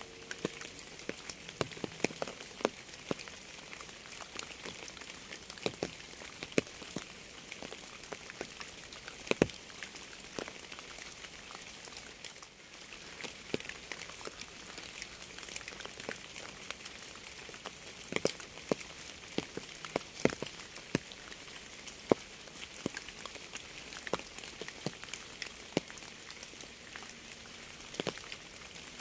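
Steady rain: a constant hiss of falling rain with many close, individual drops striking a surface at irregular intervals.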